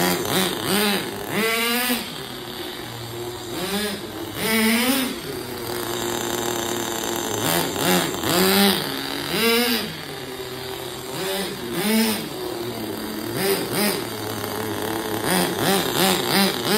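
Kyosho GT15 .15 glow-fuel engine of a 1/10-scale RC car, revving in short throttle blips about every second or two and falling back to a steady idle between them.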